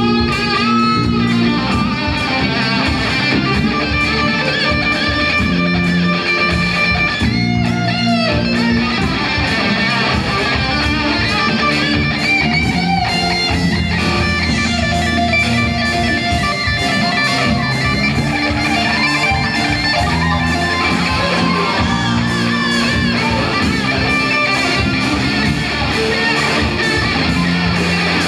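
Live rock band playing, led by an electric guitar solo with bending, sustained notes over drums and bass.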